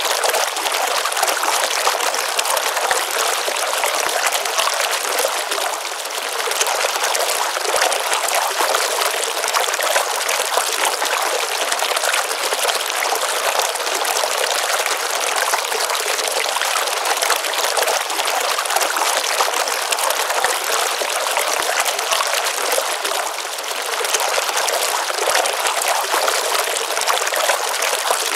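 Water of a small pond stream running and splashing steadily, a continuous even rush that softens slightly for a moment twice.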